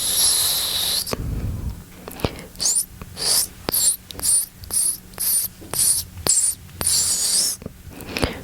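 Close-up ASMR mouth sounds: a long hiss, then a steady series of short wet hissing mouth sounds, about two a second, with small tongue and lip clicks between them.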